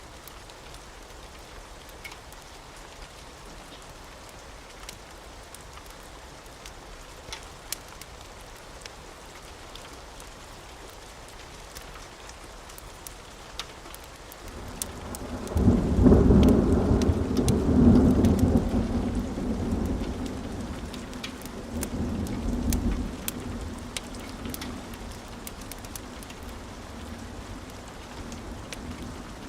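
Steady rain with scattered sharp crackles of a wood fire. About halfway through, a long roll of thunder builds in, peaks, swells a second time and fades away.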